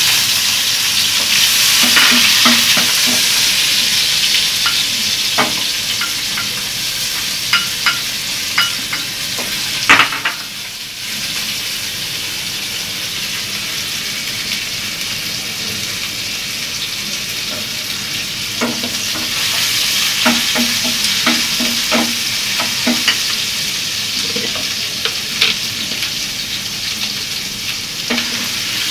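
Sliced onions sizzling in hot oil in an aluminium pan, loudest in the first few seconds as they go in, then settling to a steady fry. A wooden spatula stirs them, with scattered knocks and scrapes against the pan and a sharper knock about ten seconds in.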